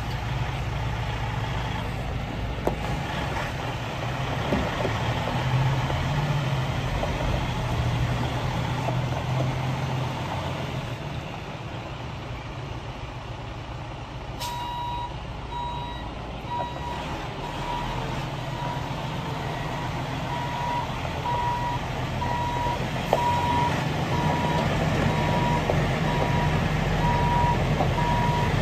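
The six-cylinder Detroit DD15 diesel in a Freightliner SD122 dump truck runs steadily, and its note rises for a few seconds early on as the truck pulls. About halfway through, the truck's backup alarm starts beeping at an even pace while it reverses, and keeps going over the engine.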